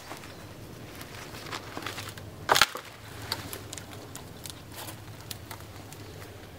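Footsteps through forest undergrowth, with dry twigs and branches cracking underfoot and one loud snap about two and a half seconds in.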